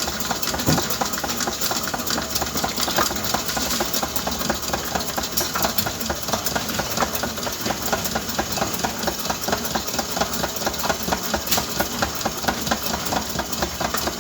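Electric mixer running steadily while mixing cake batter, with a rapid regular ticking.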